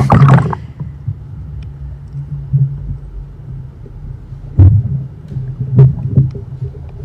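Muffled low rumble of a camera recording underwater, with a few sharp knocks as hands work a coral fragment into the reef.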